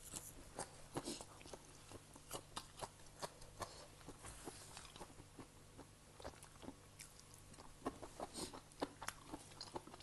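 Close-up chewing of a mouthful of spicy Thai seafood and glass-noodle salad: faint, irregular wet clicks and crunches, several a second, bunching up around a third of the way in and again near the end.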